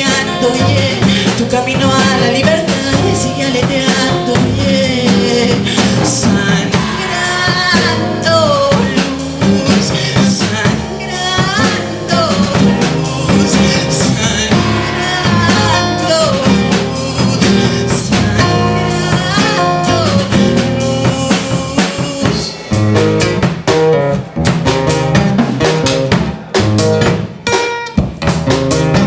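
Live band playing: a man singing over strummed acoustic guitar with drum kit behind. About 22 seconds in the singing stops and the drums come forward with sharp, separate hits.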